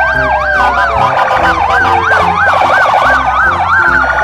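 Electronic police-style siren: several overlapping tones sweep up and down, with a faster warble in the middle, over a steady low background beat.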